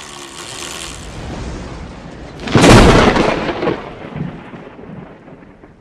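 Intro sound effect for an animated logo: a hiss, then a sudden loud thunder-like boom about two and a half seconds in that dies away over the next few seconds.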